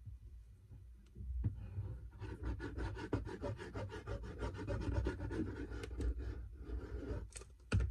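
Applicator tip of a glue bottle rubbed quickly back and forth over paper to spread the glue, many rapid strokes over several seconds, then a short louder knock near the end.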